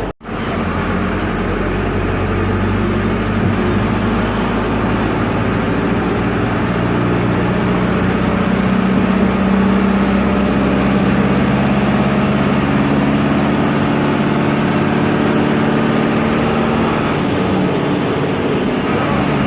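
Noisy air-cooled Deutz F4L912 four-cylinder diesel of an Otokar M-2000 minibus, running steadily under way and heard from the cab. Its pitch rises a little about seven seconds in, holds, then eases off near the end.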